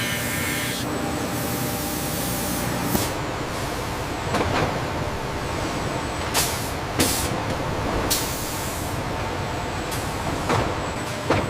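Steady industrial machinery noise with several short hissing bursts, like compressed air being released, scattered through it.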